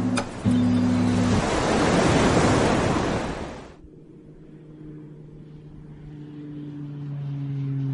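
Breaking-surf sound effect in the intro of a song: a loud rush of wave noise that swells and cuts off suddenly after about three and a half seconds, following the end of some strummed acoustic guitar chords. After it come quiet held low notes that slowly grow louder.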